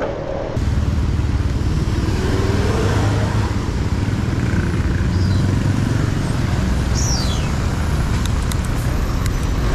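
Wind buffeting the microphone of a moving bicycle, with road traffic noise beneath. It is a heavy, steady rumble that sets in suddenly about half a second in. A short, high, falling chirp comes about seven seconds in.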